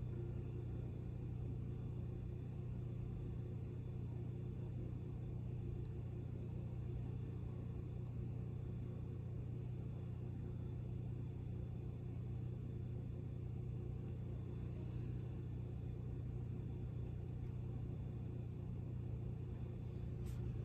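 Room tone: a steady low hum with no speech, unchanging throughout, and a faint click near the end.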